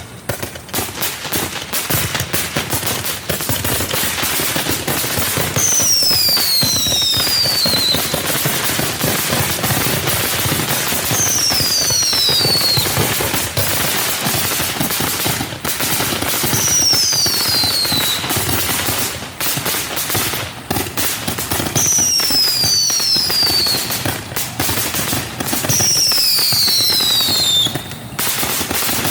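Black Cat Liberty Cannon firework going off: dense, continuous crackling with rapid sharp reports, and a falling whistle about every five seconds, five in all.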